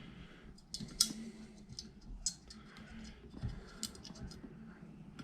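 Light, scattered clicks of small metal screws being handled and fitted into the iMac's case.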